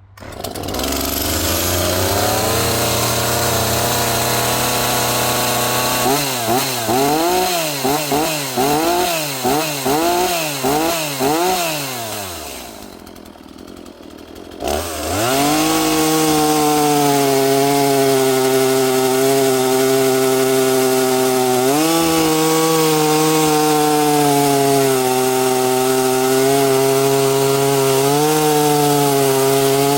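Echo CS-450P 45 cc two-stroke chainsaw starting up and running at fast idle, then revved in about eight quick blips to warm it up. It falls back to a low idle for a moment, then from about halfway through runs steadily at full throttle with small dips in pitch as it is pushed through a cut in a log.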